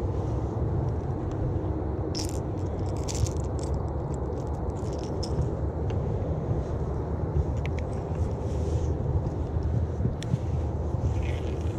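Steady low rumble of wind buffeting the microphone, with scattered light clicks and rattles from a spinning rod and reel being handled.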